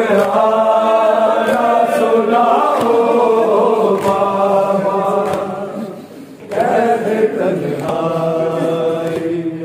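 A noha party chanting a Shia mourning lament (noha) in long, held notes, with a short break about six seconds in before the chant resumes.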